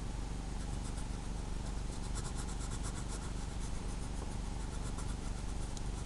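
Coloured pencil shading on paper: quick, even back-and-forth scratching strokes over a steady low hum.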